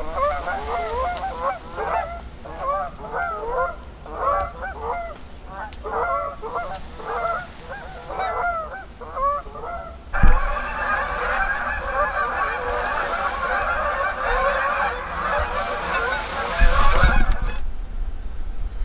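A flock of geese honking in short, repeated, overlapping calls. About ten seconds in it changes to a denser chorus of many geese at once, which cuts off abruptly near the end.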